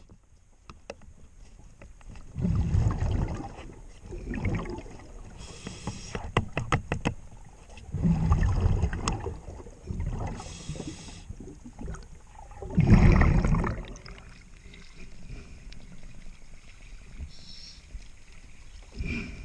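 Scuba diver breathing underwater: a hiss from the regulator on each inhale and a low bubbling rush on each exhale, three breaths in all. Light metallic taps on the feathering propeller's blades come in between.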